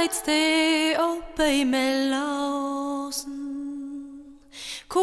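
Music: a single voice singing a slow melody, with long held notes that waver slightly and a short break about a second and a half in.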